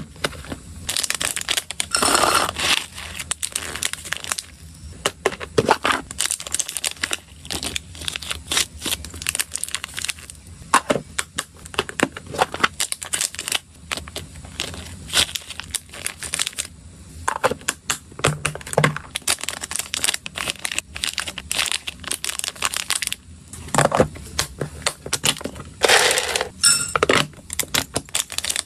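Crinkling of small clear plastic zip bags, mixed with light clicks and taps of a plastic spoon and a hard plastic storage box, as small dry hamster treats are scooped and bagged. It comes as a run of short crackly bursts and sharp ticks.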